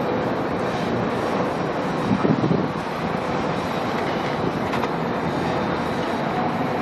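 Steady rumble of a SEPTA Broad Street Line subway train, with a couple of faint knocks.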